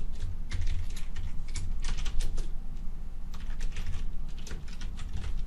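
Computer keyboard typing in several short runs of keystrokes, over a low steady hum.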